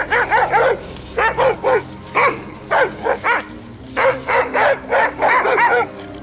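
Dogs barking at a stranger, about three or four barks a second in short runs with brief pauses.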